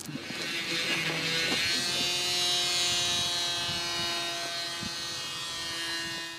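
Small handheld electric power tool running steadily with a high whine over a hiss; the hiss swells through the middle and eases off.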